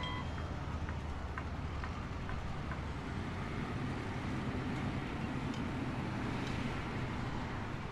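Steady low rumble of heavy machinery running, with faint scattered clicks and clanks over it.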